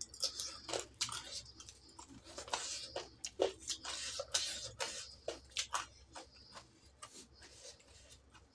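Close-up chewing and lip-smacking of a mouthful of rice and chicken curry eaten by hand: an irregular run of quick clicks and smacks that thins out near the end.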